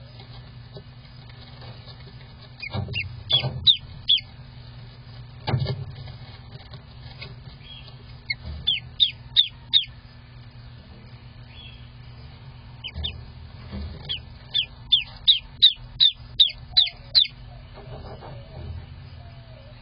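Newly hatched duckling peeping: short, high calls that fall in pitch, in bursts of several at a time, with the longest run of about a dozen near the end. A couple of dull knocks and a steady low hum lie underneath.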